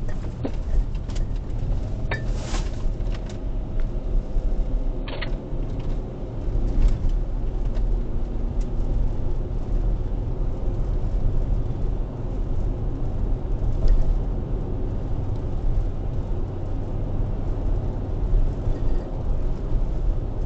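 Car driving, heard from inside the cabin: a steady low rumble of road and engine noise, with a few short knocks and clicks scattered through it.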